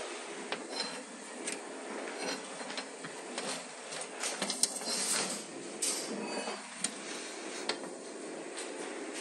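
Thin steel band and a motorcycle brake shoe being handled on a workbench: scattered light clicks and taps of metal on metal, thickest in the middle, over a steady background noise.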